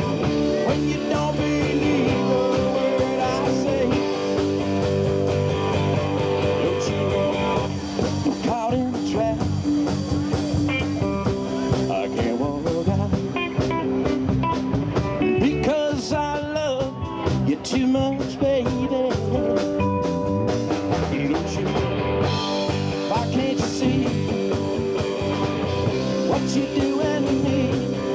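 Live rock band playing a blues-rock number: electric guitars, bass and drums, with a singer. In the middle the band thins out under a lead guitar playing bent, wavering notes.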